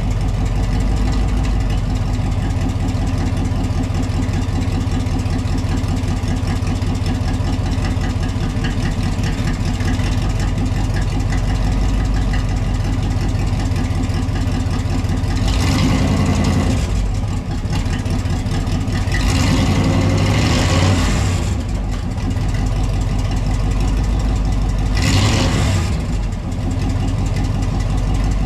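Third-gen Camaro's engine idling steadily, with three brief louder surges spread through the latter half, as the freshly rebuilt 700R4 automatic transmission is put into gear to test whether it drives.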